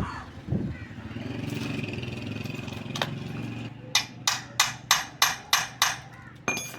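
A run of seven quick hammer blows on metal, about three a second, ending in a ringing metal clink. Before the blows there is a steady hum.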